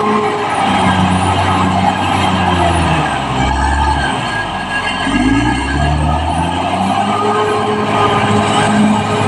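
Caterpillar D6R crawler bulldozer's diesel engine working under load, its pitch rising and falling as the revs change.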